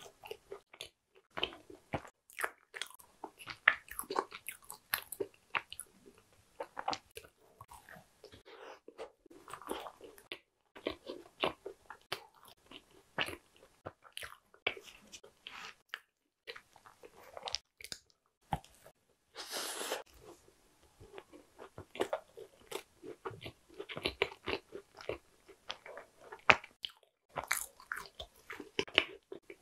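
Close-miked chewing of a bite of Oreo cheese tart: a dense run of small crunches, with one louder, longer crunch about two-thirds of the way through.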